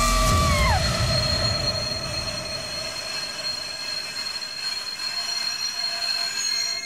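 Train passing over the rails: a heavy rumble of wheels on track fades over the first second or two, while a steady high-pitched wheel squeal rings on and then cuts off suddenly. At the very start a brief shrill tone rises, holds for under a second and drops away.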